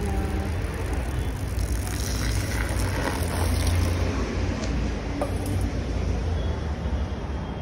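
Low, fluctuating outdoor rumble with an even background hiss, with no clear distinct event standing out.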